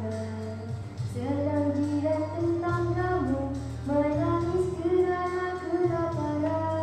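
A girl singing a melody with long held notes over a musical backing track, which has a steady low bass and faint light percussion.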